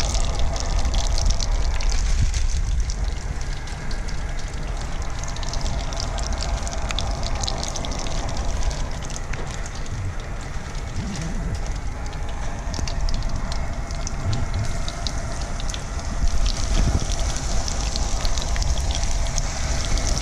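Crumbed flathead pieces shallow-frying in hot butter and grapeseed oil in a pan: a steady sizzle full of fine crackles, with a low rumble underneath.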